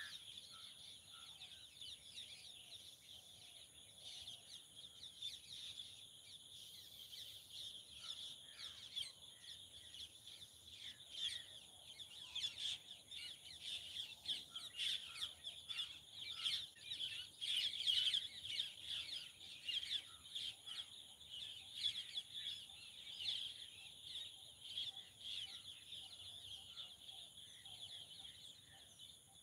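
Faint chorus of birds chirping and calling, busiest around the middle, over a steady high-pitched drone.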